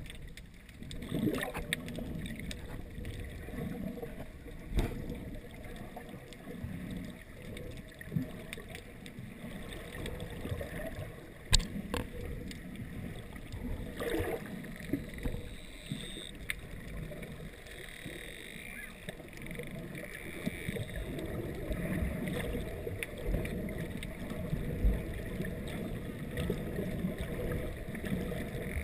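Muffled underwater water noise picked up through a GoPro dive housing: a steady low churning rumble of water moving against the housing, with a few sharp knocks.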